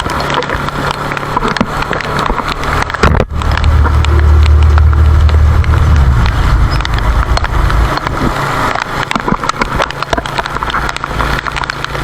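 Heavy rain pattering on a tarp or tent in dense, irregular drops. About three seconds in, a loud deep rumble starts abruptly, holds for a few seconds and dies away.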